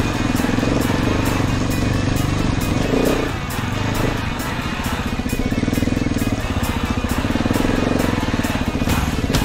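KTM 690 enduro motorcycle's single-cylinder four-stroke engine running under load on a rocky trail, a steady, fast stream of firing pulses.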